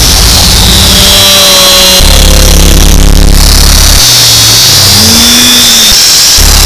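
Harsh noise music: a wall of heavily clipped, distorted static at full loudness. A deep drone cuts in and out every couple of seconds, a high whine runs through it, and a few brief sliding tones appear.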